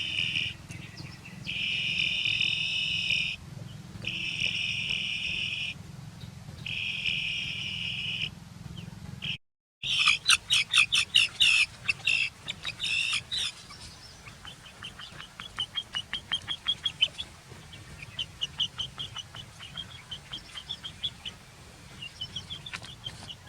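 Insects buzzing in four long high bursts, then, after a brief cut, a chick peeping: a run of rapid loud chirps followed by repeated short high peeps.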